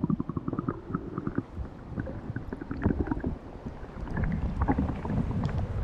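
Low rumbling wind buffeting on the microphone, with scattered small knocks and water splashes while the trout is held in the river.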